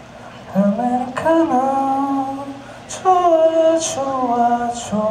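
A singer's voice holding long notes without any band playing along, in two phrases with a short break about three seconds in.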